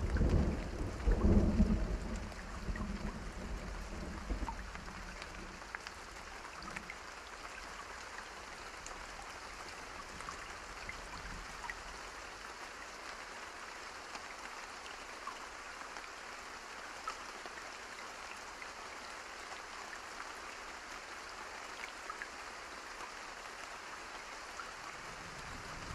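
Steady rain falling, with scattered drops ticking out of an even hiss. A roll of thunder rumbles loudly over the first few seconds and dies away.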